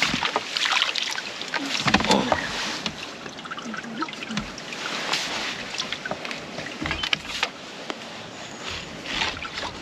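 Water splashing and sloshing as a small carp is handled in a landing net at the water's surface, with irregular knocks and rustles from the net and tackle.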